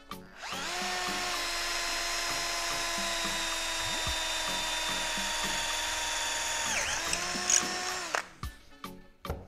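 Small power drill spinning up and boring a twist bit into a block of extremely dense dark hardwood held in a bench vise. The motor whine holds steady, sags briefly near the end, then stops about eight seconds in.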